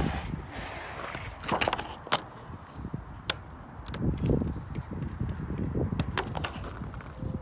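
Wind rumbling on the microphone, with scattered sharp clicks and knocks.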